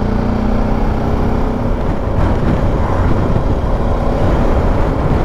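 BMW G310 GS single-cylinder motorcycle engine running while riding, heard from the bike with wind rumble on the microphone. The engine note holds a steady pitch for about two seconds, then blurs into the rumble.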